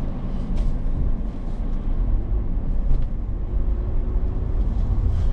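Motor vehicle on the move, heard from on board: a steady low rumble of engine and road noise, with a few faint clicks.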